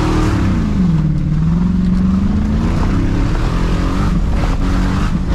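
Demolition derby pickup truck's engine under hard throttle. Its pitch falls sharply in the first second as the revs drop, then climbs steadily over the next two seconds and holds.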